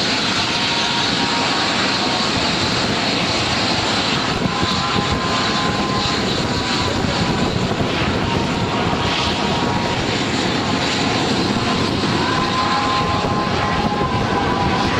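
A fixed-wing aircraft's engines running steadily in a flying display, a dense even noise with a faint whine that drifts slightly in pitch.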